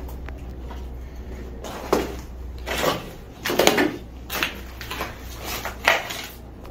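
A door knocking and scraping as it moves, with a short creak near the middle: a run of bumps about half a second to a second apart, starting about two seconds in, over a steady low hum.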